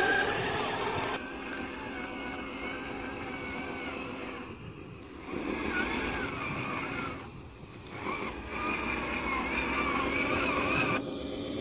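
Radio-controlled 8x8 model tipper truck driving under load: its electric drive motor and gears whine, rising and falling in pitch with speed, and drop away briefly twice as it pauses. A louder, different sound fills the first second and breaks off suddenly.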